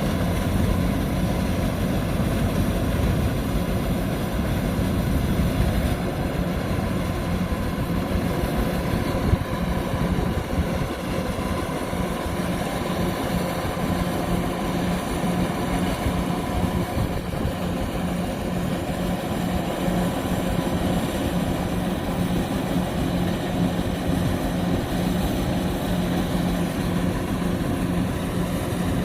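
Kubota DC-105X combine harvester running steadily: its diesel engine and machinery give a constant drone with a faint steady whine.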